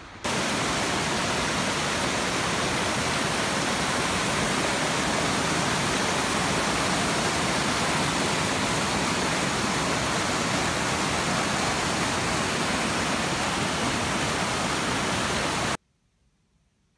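Glen Ellis Falls' whitewater rushing between boulders, a loud, steady wash of falling water, with the flow swollen by heavy overnight rain. It cuts off suddenly near the end.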